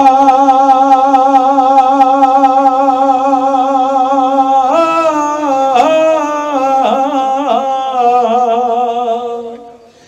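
A man singing a Bengali song unaccompanied into a microphone. He holds one long note with a steady vibrato, then moves into a winding, ornamented phrase about five seconds in, and trails off near the end.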